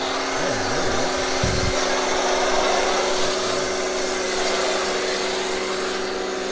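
Electric pressure washer running with a steady motor hum while its foam cannon sprays soap foam onto a car in a continuous hiss.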